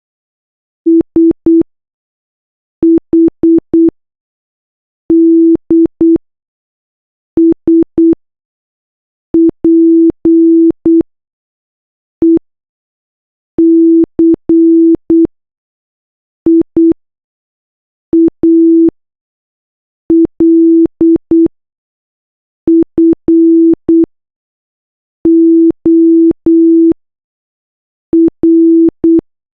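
Morse code sent as a single steady low-pitched beep, keyed on and off in short dots and longer dashes. The beeps come in groups, one letter each, with pauses of about a second between groups, and there is a faint click where each beep starts and stops.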